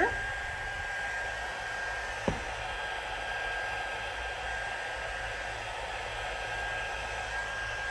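Crafting heat gun running steadily, blowing hot air with a thin high whine over the noise of the air, drying wet watercolour ink on paper. One light click about two seconds in.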